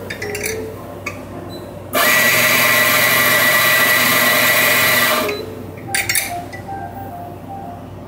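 Fiorenzato F83E espresso grinder's motor and 83 mm flat burrs grinding coffee for about three seconds, starting and stopping abruptly, a steady high whine over a grinding rush. A few light clicks of handling come before and after, over soft background music.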